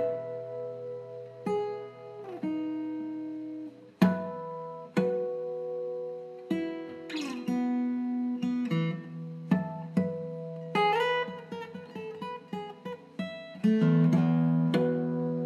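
Acoustic guitar music: single plucked notes and a few fuller chords, each ringing out and fading.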